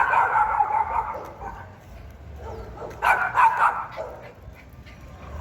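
Miniature pinscher barking angrily in two quick runs of barks, one at the start and another about three seconds in.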